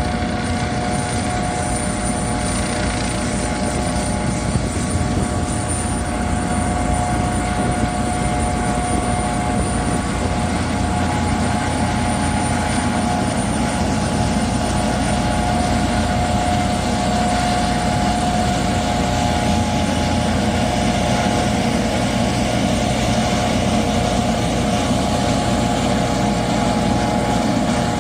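Eurocopter EC155 B1 helicopter running on the ground with its twin turboshaft engines and rotors turning. A steady turbine whine sits over the whir of the main rotor and the Fenestron shrouded tail rotor.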